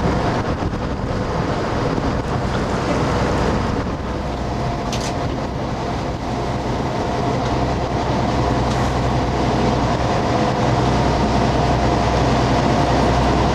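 Motorboat's engine running steadily, a constant low drone under an even rushing noise.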